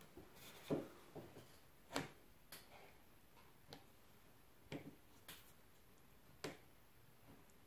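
About eight faint, light taps and clicks at irregular intervals from hands handling a wooden strip while spreading construction adhesive on it.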